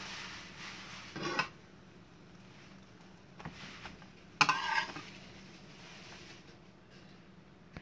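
Metal slotted spatula scraping against a frying pan as a crêpe is folded and lifted out: two short scrapes, one about a second in and a louder one around four and a half seconds in.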